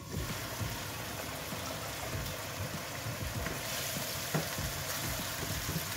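Cucumber slices in a little water and oil sizzling and bubbling in a non-stick wok; the sizzle comes up suddenly as the glass lid is lifted and brightens a little past halfway. A wooden spatula stirs the slices, with a few short scrapes against the pan.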